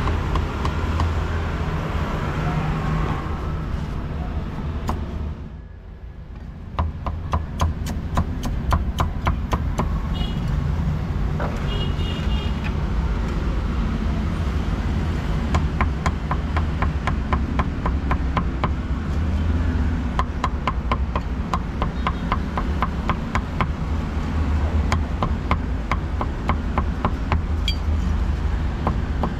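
Meat being chopped with a knife on a chopping board in fast, even strokes, several a second, over a steady low traffic rumble. The chopping starts after a brief dip about six seconds in.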